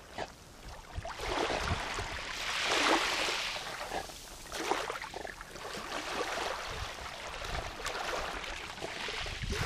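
Small sea waves washing onto a pebble shore and around rocks right by the microphone, each wash swelling and fading every couple of seconds.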